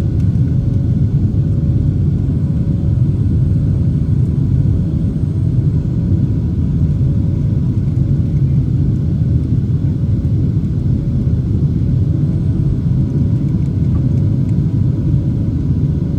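Steady cabin rumble of a Boeing 737-700 climbing after takeoff: its CFM56-7B engines and the rushing air, heard from inside the cabin.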